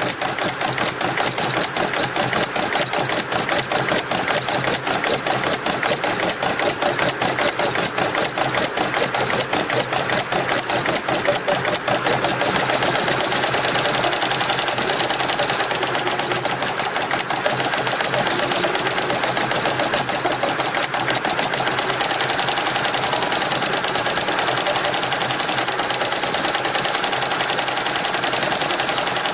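Richpeace roll-to-roll multi-head embroidery machine stitching, a fast, steady mechanical clatter of needle strokes.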